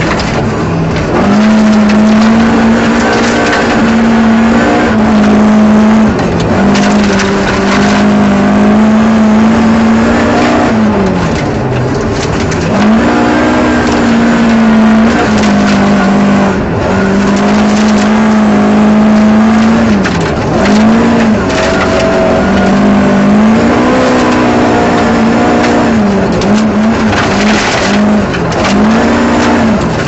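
Ford Escort rear-wheel-drive rally car's engine heard from inside the cabin, held at high revs flat out on a gravel stage, with brief dips and pick-ups about ten times as the driver changes gear or lifts for corners. Gravel rattles against the underbody throughout.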